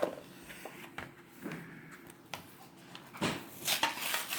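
A metal Pokémon card tin being handled and opened: scattered light clicks and knocks, then louder rattling and clattering about three seconds in as its contents are worked loose.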